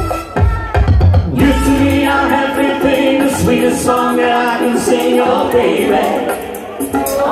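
A man singing into a microphone over a backing track, the two played loud through a PA.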